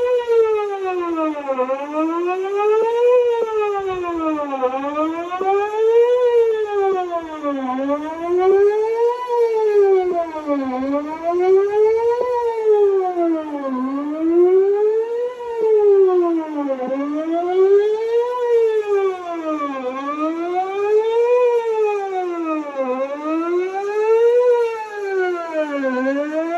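Wailing siren broadcast through a mosque tower's horn loudspeakers, its pitch rising and falling evenly about once every three seconds.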